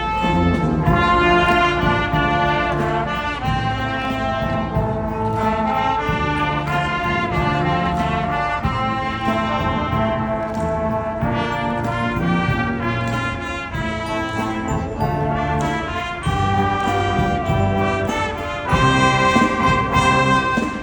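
A youth wind band playing: brass with trumpets and trombones over a bass line, in sustained chords, swelling louder near the end.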